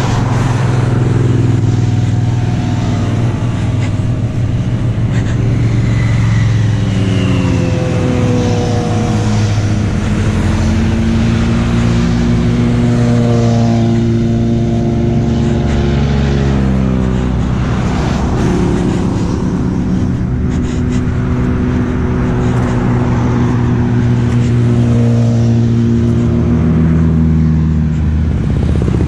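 Motorcycles riding past on the road one after another, their engines rising and falling in pitch as each goes by, over a steady low engine drone.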